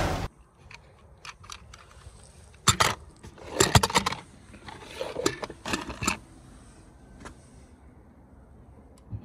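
Toy cars clicking and clinking against each other as they are handled, with a few scattered clatters, the loudest about four seconds in.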